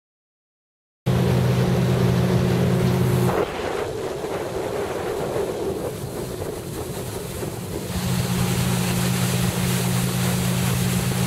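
Motorboat engine running at speed, with wind on the microphone and the rush of water along the hull. The engine drops out about two seconds in, leaving only wind and water for a few seconds, then comes back.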